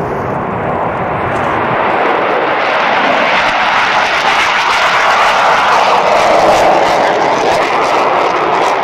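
A pair of F-4 Phantom II jet fighters taking off and climbing away, their J79 turbojet engines making loud, continuous jet noise at take-off power. The noise grows a little louder past the middle as the jets climb out.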